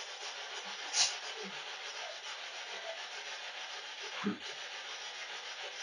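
SB7 spirit box sweeping through radio stations: a steady hiss of radio static. A sharp click comes about a second in, and a dull thump a little past four seconds.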